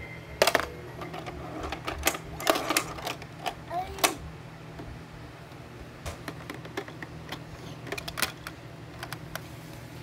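Hard plastic toy blocks clacking against each other and against a Fisher-Price plastic block barn as a toddler handles them and pushes them into the toy; irregular knocks, busiest in the first four seconds and sparser after.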